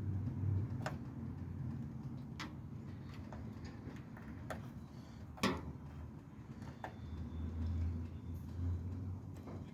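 Scattered light clicks and taps from handling small metal and plastic parts, with one sharper knock about five and a half seconds in, over a low rumble.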